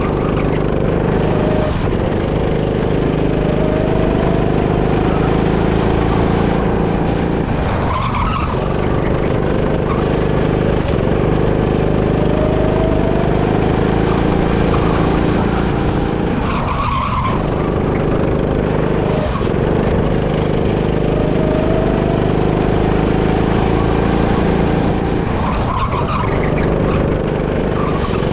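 Go-kart at racing speed, heard from on board: the motor runs hard and rises in pitch on each straight, and the tyres scrub and squeal through the tight corners. The pattern repeats about every nine seconds, once per lap.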